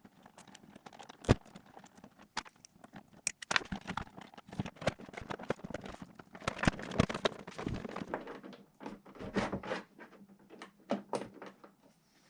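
Glitchy electronic sound from a DigiTech RP-1 multi-effects processor run as a no-input feedback loop: irregular clicks, crackles and knocks that come thickest midway through, over a faint steady low hum.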